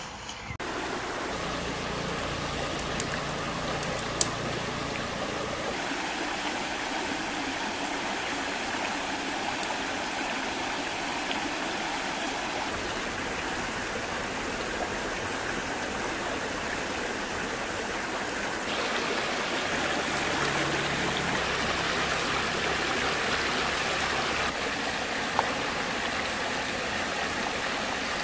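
A shallow rocky stream flowing steadily, a continuous rushing of water, with a few sharp clicks, the loudest about four seconds in.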